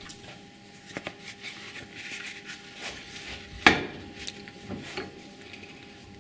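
Steel drill-press quill, wrapped in a leather pad, being handled and set into a cast-iron bench vise: scattered light knocks and rubbing, with one sharp metal knock a little past halfway.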